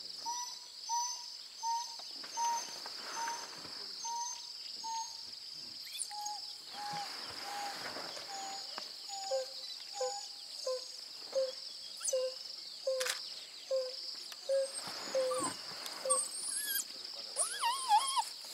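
African wild dogs (painted wolves) giving their contact hoo calls to the rest of the pack: short hoots about two a second, in runs at three different pitches, two callers overlapping around the middle. Near the end come high, wavering squeaky twitters.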